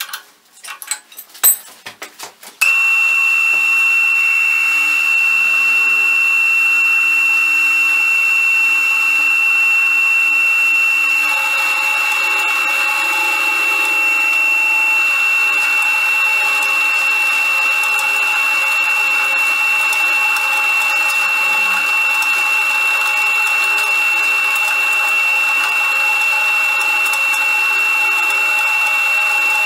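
A few metal clinks of a wrench on the spindle's collet nut, then the homemade milling spindle's motor starts about two and a half seconds in and runs with a steady high whine. From about eleven seconds in, a rougher grinding noise joins it as the end mill cuts into a steel bar.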